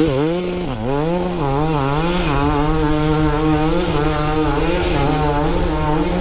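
Enduro dirt bike engine revving hard under load as it climbs a steep slope. Its pitch dips and rises again and again as the throttle is worked, with a deep drop about a second in.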